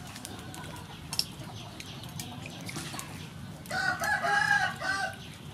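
A rooster crows once, a long call starting about three and a half seconds in. Before it, light splashes and clicks of water in a metal bowl as hands wash banana slices.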